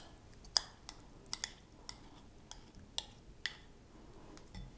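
Scattered light clicks and taps as chopped cucumber is tipped into a salad bowl, about nine irregular ticks over a few seconds.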